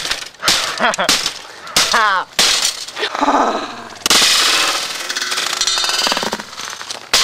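Blows smashing a Macintosh PowerBook's floppy drive, with sharp metal-and-plastic clangs. There is a quick run of hits in the first two and a half seconds, a hard hit about four seconds in followed by a long noisy rattle, and one more blow near the end.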